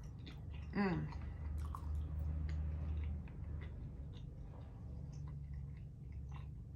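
Close-up chewing and wet mouth sounds of a person eating bread dipped in cream of broccoli soup, small scattered clicks of the jaw and lips, with a brief hummed "mm" about a second in. A steady low hum runs underneath.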